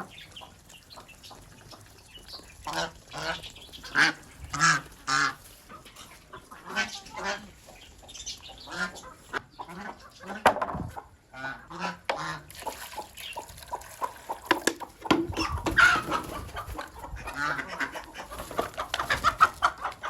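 Ducks quacking and chickens clucking, many short calls overlapping, with a busier, noisier stretch about three quarters of the way in.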